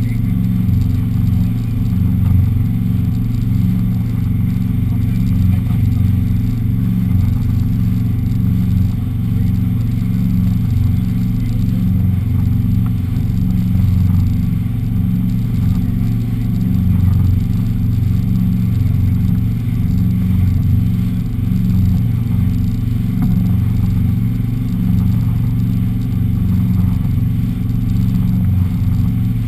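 Four Winns motorboat's engine running steadily at speed while towing a tube: a loud, low, steady drone with little high sound and a faint regular pulse.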